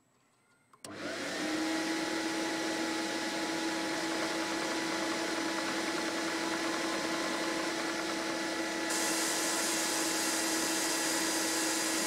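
Antari SW250 snow machine starting up about a second in and then running steadily: a loud blower whir with a steady motor hum, like a vacuum cleaner. A brighter hiss joins about nine seconds in.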